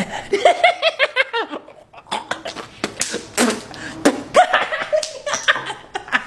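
A man laughing in bursts, with a few sharp clicks around the middle.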